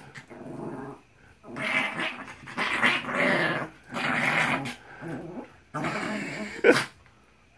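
Small Yorkshire terrier growling in rough play while being held and wrestled, about six growling bouts in a row with short pauses between them and a sharper one near the end.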